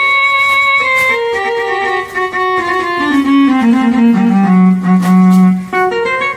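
Casio CT-X870IN/CT-X700 keyboard playing a melody on a bowed-string-style tone. The slow line of held notes steps downward to a long low note, and a new higher phrase starts near the end.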